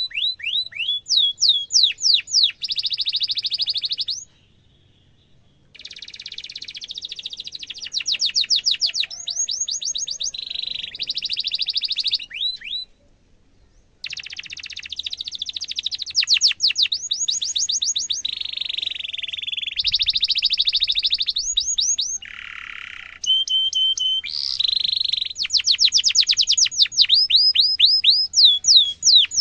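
Domestic canary singing a long song of quick series of repeated falling notes alternating with buzzy rolls. It breaks off briefly twice, about four and thirteen seconds in.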